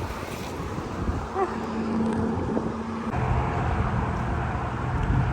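Vehicle traffic rumbling past, with a steady engine note that drops lower and grows stronger about three seconds in.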